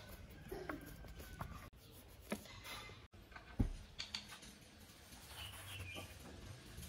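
Quiet workbench handling: a screwdriver clicking and scraping against a screw in an electric planer's housing, then a single dull thump about halfway through followed by light taps and rustling as a pad is pressed onto an aluminium plate on a cloth.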